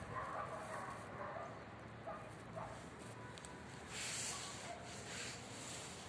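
A few faint, short animal calls scattered over a low background hiss, with a brief rushing noise about four seconds in.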